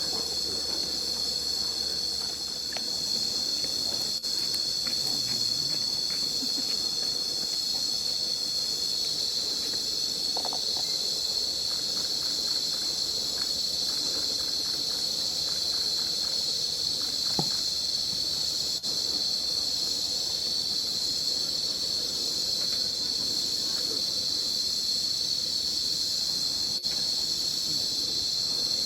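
A steady, high-pitched chorus of forest insects such as cicadas, shrilling without a break.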